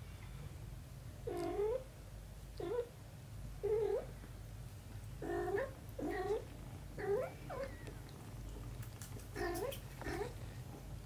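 A cat mewing: about nine short meows, each bending up then down in pitch, several coming in quick pairs.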